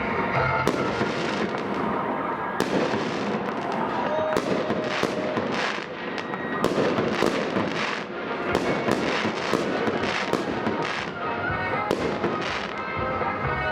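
Festive fireworks display: shells bursting in quick succession, many sharp bangs a couple of times a second, with music playing underneath.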